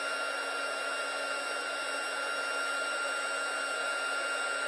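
Heat gun running steadily, blowing hot air onto a solder seal wire splice to shrink its sleeve and melt the solder inside: an even blowing hiss with a thin high whine.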